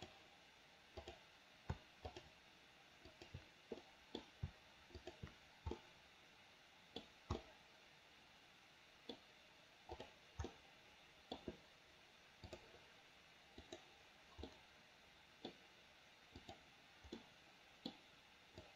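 Faint, irregular clicks of a computer mouse and keyboard, about one to three a second, several coming in quick pairs.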